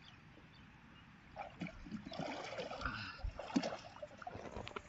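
Water splashing and dripping as a person climbs out of the water onto a narrow wooden boat, starting about a second and a half in, with a few knocks on the hull.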